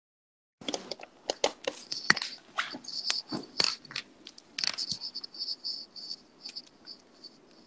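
Phone handling noise coming through a live stream: a string of irregular taps, knocks and rubbing on the microphone, with a high chirping pulse repeating several times a second that fades near the end. The stream's sound cuts in suddenly about half a second in, after dead silence.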